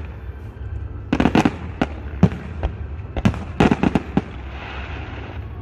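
Aerial fireworks bursting: a run of sharp bangs, some single and some in quick clusters, over a steady low rumble. The bangs thin out after about four seconds.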